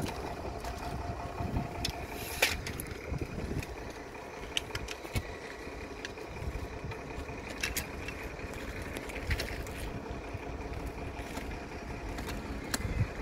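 Steady engine hum with a couple of faint steady tones, with scattered short, sharp clicks, the loudest about two and a half seconds in.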